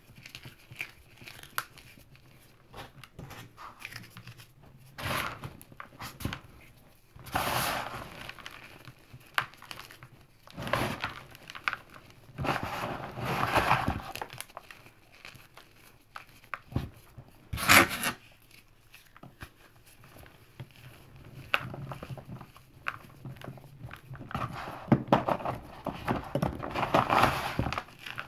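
Hands crushing and crumbling chunks of teal gym chalk and cornstarch, with irregular soft crunches and powder trickling between the fingers. One sharper, louder crunch comes about two-thirds of the way through.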